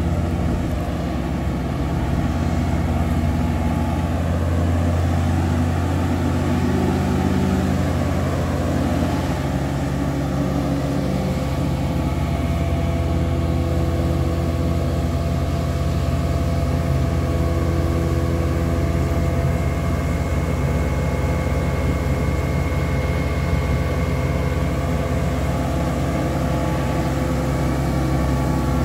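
Western Star vacuum truck's Weichai diesel engine running steadily, a deep, even drone with a low hum and a constant pitch.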